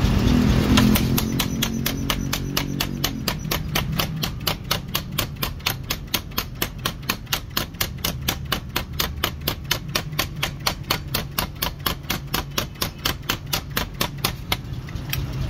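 7.5 kg Madni power forging hammer striking a hot metal bar held on its die: a fast, even run of sharp blows, about four to five a second, over the low hum of its motor. The blows start about a second in and stop suddenly near the end.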